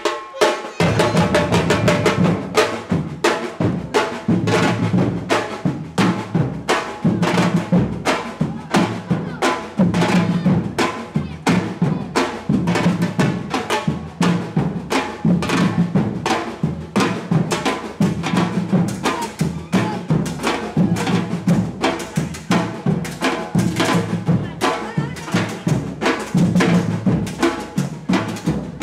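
Street percussion group playing a fast, steady drum rhythm on bass drums and snare drums, coming in at full strength a little under a second in.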